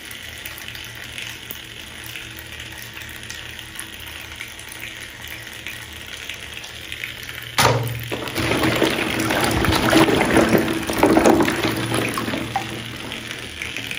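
Hand rummaging through plastic balls in a bucket of water: splashing and sloshing with light knocks of the balls. It starts suddenly a little past halfway and dies down near the end, over a quieter steady watery hiss before it.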